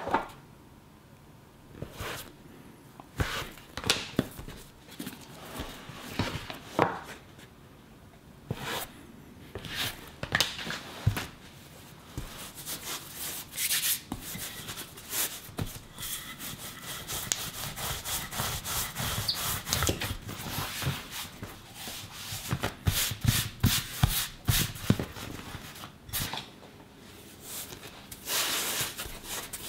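Hands working soft dough on a wooden cutting board: dough pressed, turned and rubbed over the wood, with scattered light knocks.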